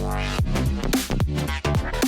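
Electronic background music with a steady beat: punchy drums and falling bass-drum sweeps under synth chords.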